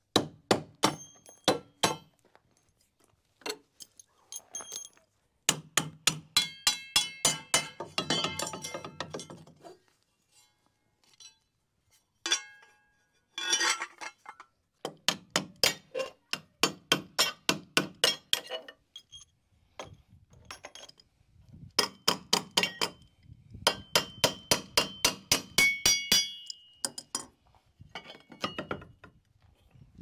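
Hammer striking steel gate hardware in bursts of rapid, ringing metallic clinks and knocks, with short pauses between bursts.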